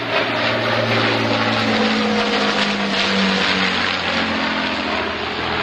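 Avro Lancaster bomber flying overhead, its four Merlin V12 piston engines and propellers giving a steady drone that dips slightly in pitch about two seconds in.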